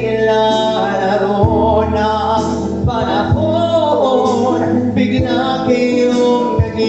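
A man singing a slow song into a handheld microphone over musical accompaniment with steady low notes and a soft regular beat.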